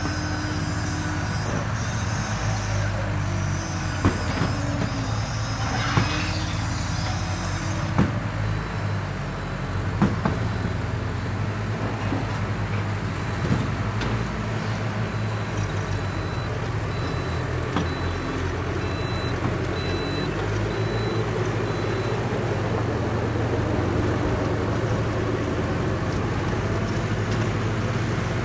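Radio-controlled construction machines running with a steady, low engine sound, with a few sharp clicks and knocks in the first half.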